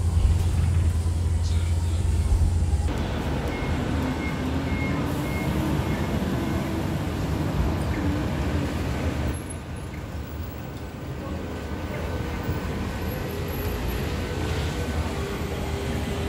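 BYD K9 electric bus running: road and cabin noise with a thin whine from the electric drive rising slowly in pitch as the bus gathers speed. The sound changes abruptly twice.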